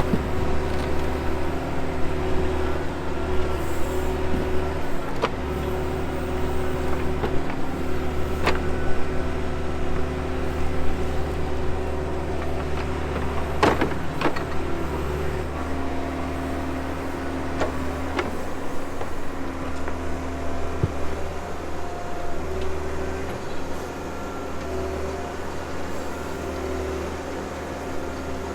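Backhoe diesel engine running steadily under hydraulic load, its note shifting now and then as the arm works. A few sharp knocks come through in the middle stretch.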